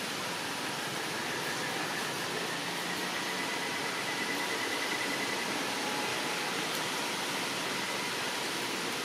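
Steady, even hiss of outdoor forest ambience, with a faint thin high tone that comes in for a few seconds in the middle and fades.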